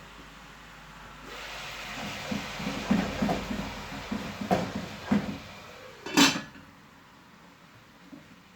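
Kitchen handling sounds: pots and utensils knocking several times over a hiss that starts about a second in and stops after about six seconds, with the loudest knock near the end of the hiss.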